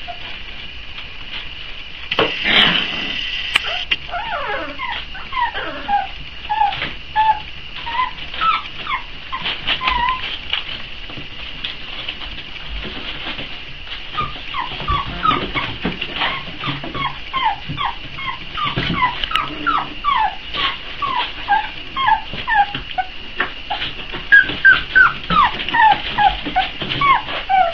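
A litter of four-week-old Boxer puppies whimpering and whining: many short, high cries that slide down in pitch, overlapping and growing more frequent toward the end. They are hungry puppies crying for food.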